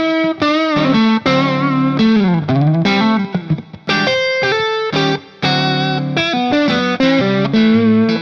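Background music: distorted electric guitar playing a riff, with bent notes.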